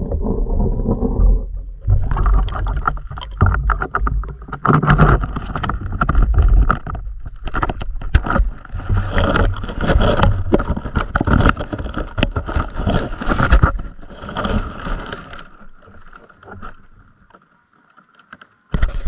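Muffled low rumble through a waterproofed camera underwater, then, about two seconds in, continual rustling, knocking and clicking as the camera is handled and brushed by grass on the bank, thinning out over the last few seconds.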